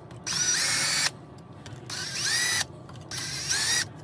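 Power drill with a 13/64 bit run in three short bursts, its motor whine rising each time as it spins up, while spotting hole positions through a drilled aluminium plate onto a tabletop.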